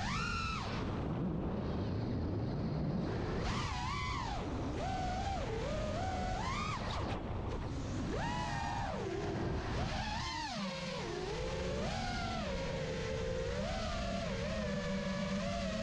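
Diatone Roma F5 five-inch FPV quadcopter's brushless motors whining, the pitch swooping up and down again and again with the throttle. Near the end the whine settles into a steadier, lower tone.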